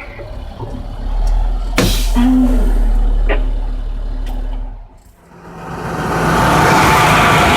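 Vehicle engine running with road noise, with a sharp click about two seconds in. The sound drops out briefly near five seconds, then returns louder as an even hiss over a steady hum.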